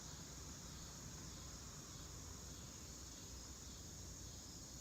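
Crickets chirping in a faint, steady night chorus, a continuous high trill with no breaks.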